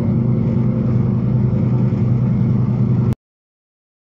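Semi truck's diesel engine running steadily at highway cruising speed, heard from inside the cab as a low, even drone with road noise. The sound cuts off suddenly about three seconds in.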